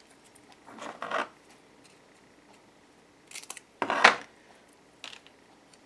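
Strip of freshly printed label tape being handled at a small Bluetooth label printer's outlet: four short papery rustles and scrapes, the loudest about four seconds in.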